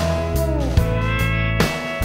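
Guitar-led instrumental music with a steady beat. A held guitar note slides down in pitch about half a second in.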